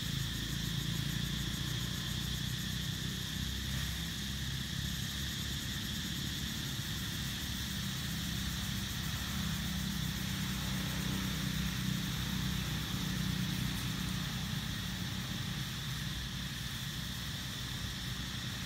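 Steady low hum of an engine running, with a constant high hiss above it and no sudden sounds.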